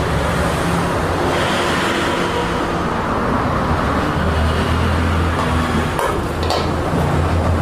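Steady road traffic noise with a low engine rumble that grows stronger about halfway through. A couple of light metal clinks come near the end as an aluminium pot lid is lifted.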